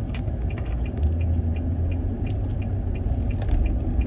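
Car heard from inside the cabin: a steady low engine and road rumble, with scattered light clicks and rattles on top.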